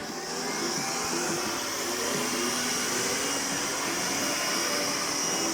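Gardena garden vacuum-blower running steadily as a blower, a rush of air with a high whine on top, fanning barbecue charcoal.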